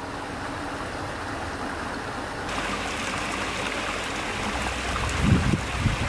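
Shallow mountain creek running over rocks: a steady rush of water that grows louder and brighter about halfway through. Wind buffets the microphone in low gusts near the end.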